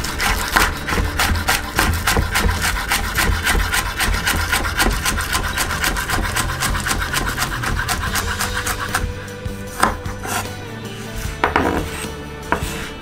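Chef's knife chopping green onions on a bamboo cutting board: a fast, even run of blade strokes on the wood, about five a second, that breaks off after about nine seconds into a few separate knocks.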